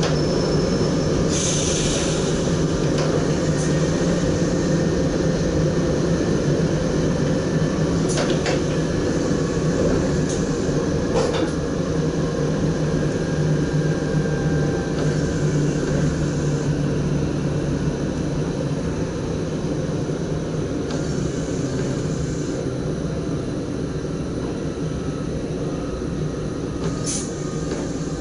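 NS SGM Sprinter electric multiple unit running along the track, heard from inside the driver's cab: a steady, loud rumble of wheels and running gear with a hum, broken by a few sharp clicks. It gets slightly quieter toward the end.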